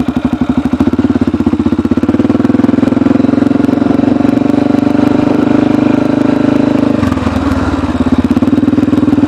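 Honda Rincon 680 ATV's single-cylinder four-stroke engine, breathing through an aftermarket Big Gun exhaust. It idles with a loud pulsing note, is brought up to raised revs about a second in and held there steadily, then drops back to idle near the end.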